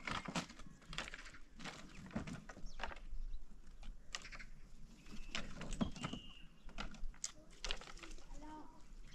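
Dry firewood branches knocking and clattering together as sticks are picked from a woodpile and gathered into an armful: a run of irregular sharp clicks and knocks.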